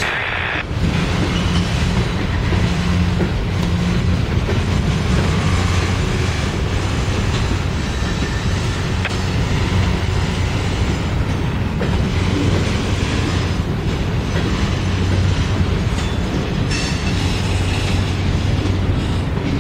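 Cars of a mixed manifest freight train, covered hoppers and then centerbeam flatcars, rolling past on the rails: a steady rumble of steel wheels on the track.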